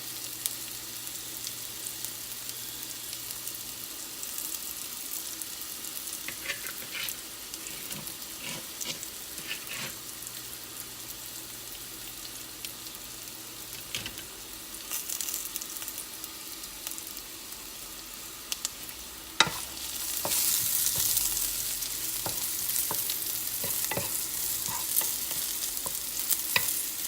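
Green beans sizzling in olive oil and butter in a skillet, with scattered clicks and scrapes of a utensil stirring them. After a sharp knock about two-thirds of the way through, the sizzle gets louder.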